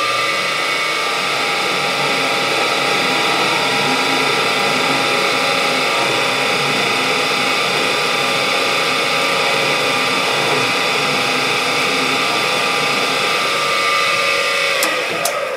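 A drill running a large twist bit into the factory hole of a big-block Chevy crankshaft counterweight, a steady machine whine as the bit cuts the steel. The hole is being drilled deeper to take out weight and shift the imbalance toward the center of the counterweight. It starts with a click, and near the end the motor winds down.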